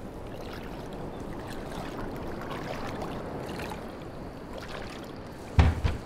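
Steady rush of flowing water, then a loud, low thud near the end.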